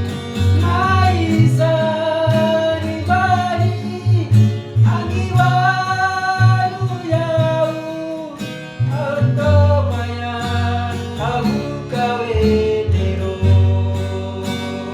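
A song with a sung melody over plucked guitar and steady bass notes.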